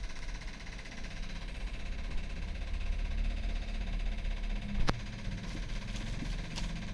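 A spring-loaded chiropractic impulse adjuster fires once about five seconds in with a single sharp snap, over a steady low hum.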